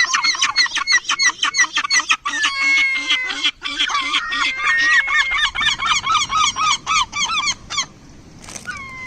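Several seagulls calling loudly over one another, in rapid repeated cries with some longer drawn-out notes. The calling dies down about a second before the end.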